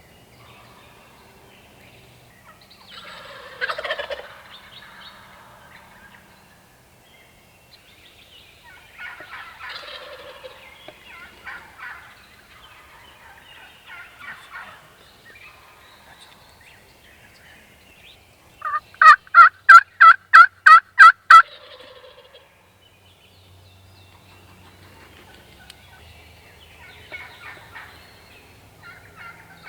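Wild turkeys gobbling several times, with a loud, evenly spaced series of about ten turkey yelps about two-thirds of the way through.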